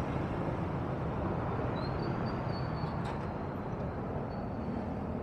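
Yamaha scooter's engine running at low speed as it rolls up to the curb and stops, with steady road and street-traffic noise around it.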